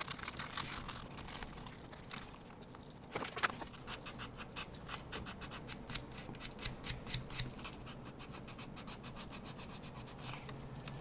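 Sandpaper rubbing on a plastic keycap in quick, repeated back-and-forth strokes, grinding away the keycap's top coating; one stroke about three and a half seconds in is louder.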